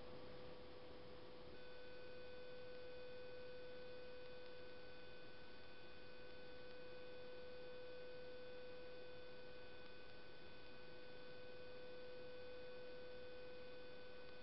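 Faint, steady electrical hum at one pitch. About a second and a half in, several higher, thin whining tones join it and hold steady.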